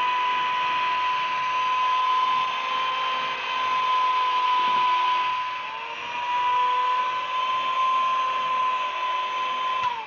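Electric hand mixer beating cake batter: a steady motor whine that sags and recovers about six seconds in, then stops with a falling pitch near the end.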